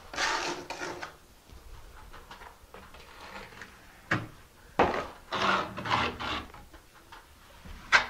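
Trowel scraping thin-set mortar on the ceiling in short rough strokes, with a few sharp clicks of the tool.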